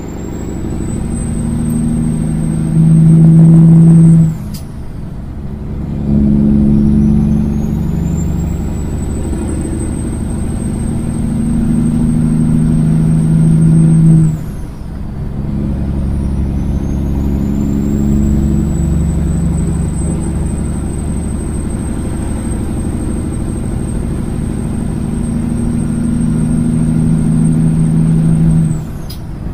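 Straight-piped Kenworth semi truck's diesel engine accelerating hard up through the gears, with a thin high whistle that climbs through each gear and drops away at every shift. The engine note breaks for shifts about four seconds in, about fifteen seconds in, and near the end, and is loudest just before the first shift.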